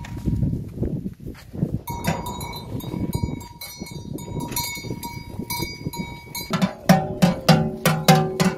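Cattle bells clanking over a low, uneven rumble: at first a bell rings now and then. From about two-thirds of the way in, a large neck bell on an ox clanks steadily, about three strokes a second, as the animal walks.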